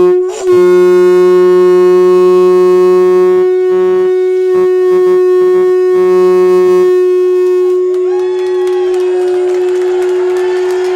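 Conch shell blown as a horn: one loud, long, steady note held for the whole stretch. Under it a lower second tone sounds, stutters on and off from about three and a half seconds in, and drops out about seven seconds in.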